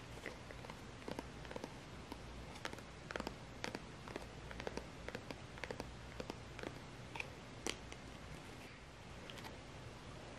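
Fingers handling and squeezing a plastic acrylic paint bottle: faint, irregular small clicks and crackles of the plastic and cap, over a steady low hum.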